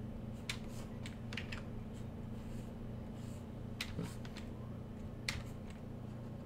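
Faint scattered clicks of computer keys, a few at a time with gaps between, over a steady low electrical hum.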